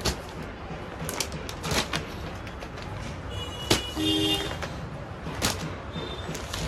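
Plastic-wrapped clothing packets being picked up and set down, crinkling with a few sharp crackles, the loudest a little before four seconds in, over a steady background hum. A short tone sounds about four seconds in.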